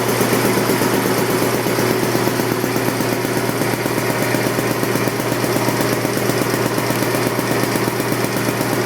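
1967 Champion two-cylinder, two-stage air compressor, driven by a 2 horsepower GE electric motor, running steadily with a fast, even pulsing as it pumps up its tank. It is not extremely loud.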